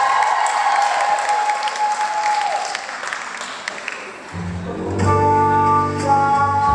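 Theatre audience applauding and cheering, the clapping dying down over the first four seconds. Then, about four seconds in, recorded music starts, with a bass line and sustained instrumental notes.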